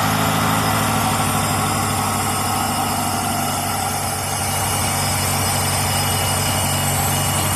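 Murray lawn mower's small gasoline engine running steadily at idle, holding an even pitch.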